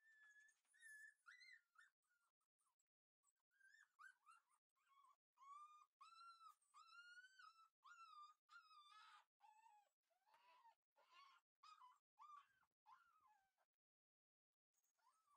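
Shiba Inu puppy whining faintly in a long run of short, high-pitched whimpers, each about half a second long, with a brief pause about three seconds in.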